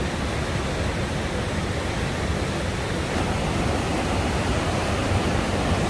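Steady, loud rush of a large waterfall at close range, an even hiss without breaks, as at Niagara Falls.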